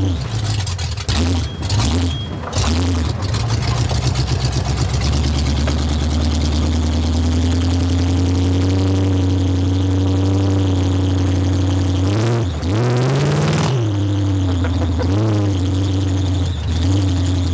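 Ford 302 V8 with custom-built headers in a 1949 Ford F2 rat rod, heard from inside the cab while driving: a steady, so loud engine note. About twelve and a half seconds in it revs up sharply, then drops back about a second later.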